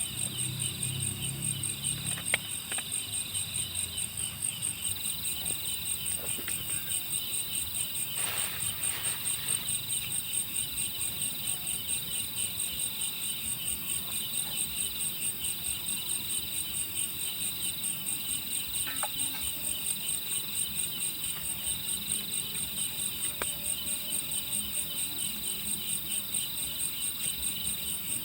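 A chorus of night insects such as crickets chirping steadily in rapid pulses at two pitches, a very high one and a lower one that swells roughly every second and a half. A few faint ticks are heard.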